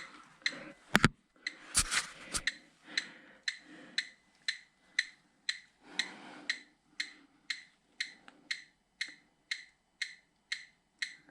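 Electronic gas leak detector ticking steadily about twice a second, the rate not speeding up. A few sharp knocks sound in the first two or three seconds.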